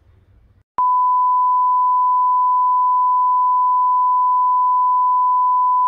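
Television colour-bar test tone: one steady beep at a single pitch, switching on abruptly about a second in and holding unchanged.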